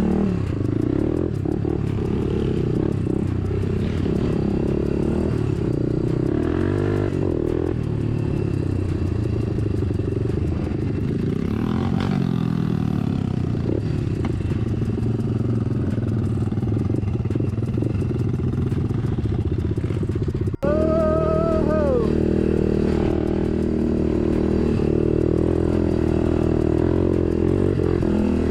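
Honda dirt bike engine running while riding a trail, its pitch shifting up and down with the throttle. About two-thirds of the way through the sound cuts out for an instant, followed by a short squeal that rises and then falls in pitch.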